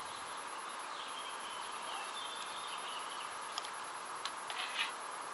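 Quiet outdoor ambience by open water: a steady even hiss with faint distant birdsong, and a few light clicks near the end.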